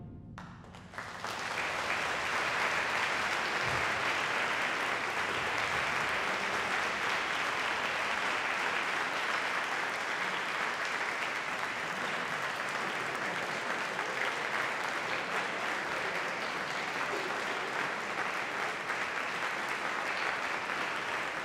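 Concert audience starts applauding about a second in and keeps clapping steadily.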